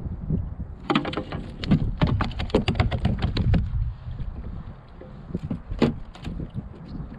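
Wind buffeting the microphone, with a quick run of clicks and knocks from about a second in and a single sharp knock near the end: gear being handled against a plastic kayak and its fish-measuring board.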